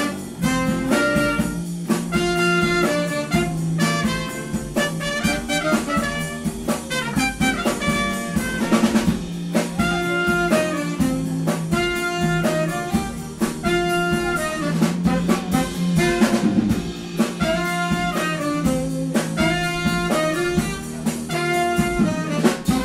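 A small live band playing: saxophone and trumpet carry the melody together over keyboard, electric guitar and drums.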